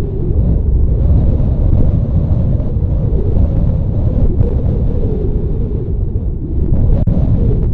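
Wind buffeting the microphone: a loud, uneven low rumble that rises and falls without a break.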